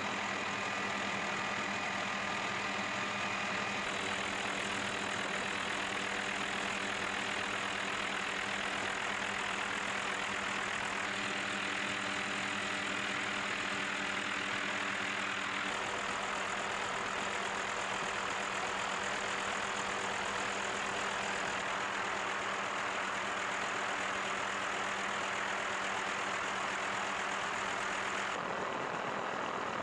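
Helicopter in flight heard from inside the cabin: a steady drone of engine and rotors with a low hum over a broad hiss. The tone shifts slightly about 4, 16 and 28 seconds in.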